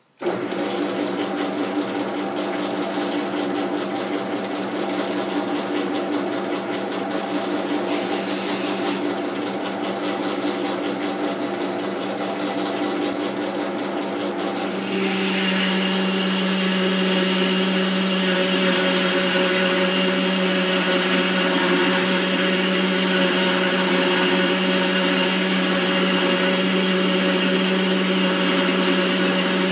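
Metal lathe starting up and running with a steady gear hum. About halfway through, the sound grows louder and fuller, with a high steady ring added, as the carbide insert starts cutting the metal hub.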